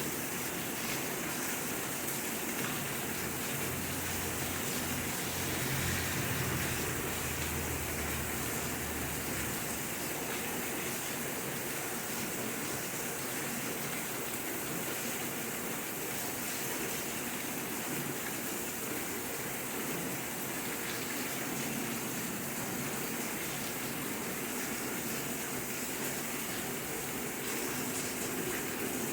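Steady rainfall, an even hiss of rain without a break, with a low rumble underneath for the first nine seconds or so.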